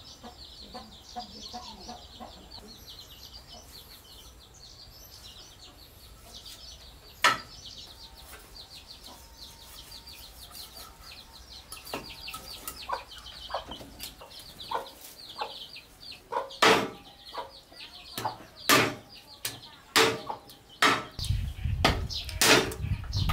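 A large knife chopping into a rack of raw beef ribs on a wooden chopping block: sharp, irregular chops starting about halfway through and growing louder and more frequent toward the end. A high, rapid chirping runs in the background through the first half.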